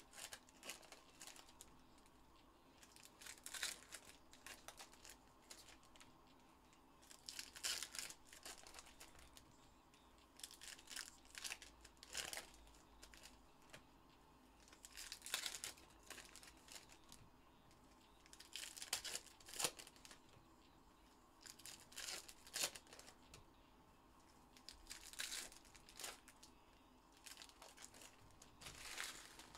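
Wrappers of 2021 Panini Contenders football card packs being torn open and crinkled, in short crackling bouts every three or four seconds.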